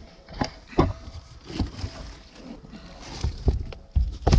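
Loose items being handled and shifted in a car trunk: a series of irregular knocks and clunks, the loudest near the end.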